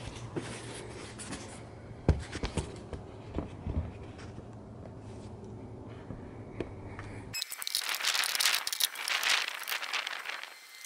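Scattered clicks and light knocks over a low steady hum, then, about seven seconds in, a louder stretch of plastic rustling and scraping as the engine's air intake tube and airbox are fitted back in place.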